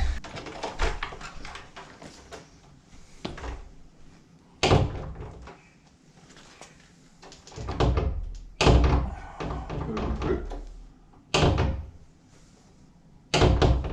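A door swung against a newly fitted floor-mounted magnetic door stop, knocking into it four times as it is caught; the test of whether the magnet grips.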